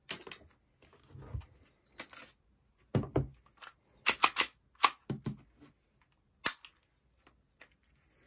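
Action Army AAP-01 airsoft gas pistol being handled: about a dozen irregular sharp plastic-and-metal clicks and knocks as its magazine is taken out and set down on the mat and the pistol is worked in the hands, with a quick cluster of clicks near the middle.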